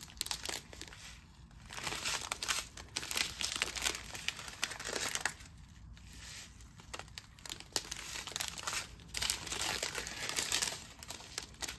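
Small plastic bags of diamond painting drills crinkling and rustling as they are handled and sorted, in irregular bursts of rustle with a quieter spell about halfway through.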